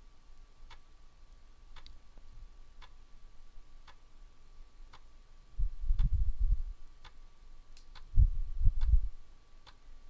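Commodore 1541-II floppy drive writing a disk, its head ticking faintly about once a second as it steps from track to track, about one track a second. Twice, about six and eight seconds in, a louder low rumble comes in for roughly a second.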